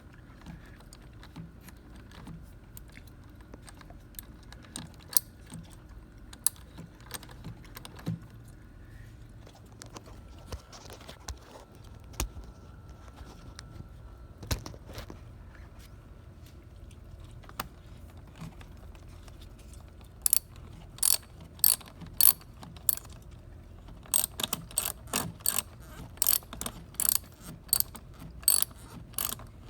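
Ratchet wrench with a 10 mm socket tightening the clamp nut on a car battery's negative terminal. First come scattered single clicks and knocks. From about twenty seconds in there are quick runs of ratchet clicks, with short pauses between them.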